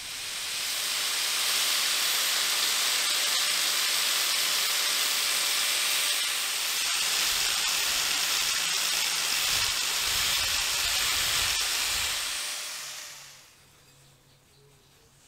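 Angle grinder with a sanding disc working over bare metal: a steady, loud hiss of abrasive on metal above a faint motor whine, dying away about thirteen seconds in.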